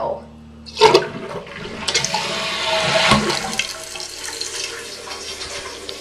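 A 1994 Kohler Wellworth Lite toilet flushing with its tank open. A sharp knock comes about a second in as the flush starts, then water rushes out of the tank, loudest around two to three seconds in and easing off after that.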